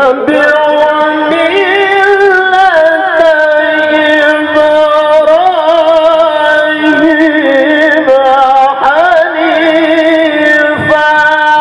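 A male qari reciting the Quran in the melodic tilawah style into a microphone, holding long high notes whose pitch bends and trills in ornaments. A new phrase begins about nine seconds in.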